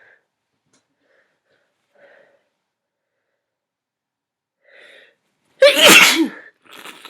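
A person sneezing once, loudly, a little more than halfway through, after a few faint breathing sounds, with a short noisy breath just after the sneeze.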